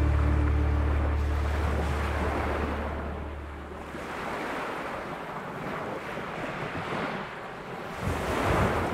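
Sea surf washing and breaking around the swimmer at water level, with wind on the microphone and a louder surge of breaking wave near the end. A low music drone fades out over the first few seconds.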